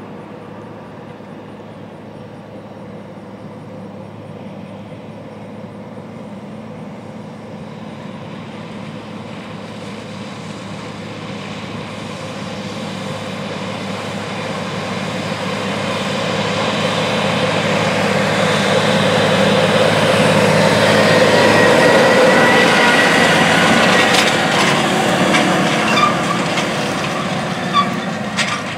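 Case IH Steiger 620 Quadtrac's diesel engine working under heavy load while pulling a 9-shank Case IH 2500 inline ripper through hard, dry ground. It grows steadily louder as the tractor approaches, is loudest about two-thirds of the way through as it goes past, then fades, with metal clanks and rattles from the tracks and implement near the end.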